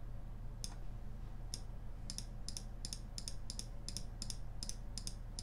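Sharp clicks from a computer's mouse buttons or keys: two single clicks, then an even run of about three a second from about two seconds in.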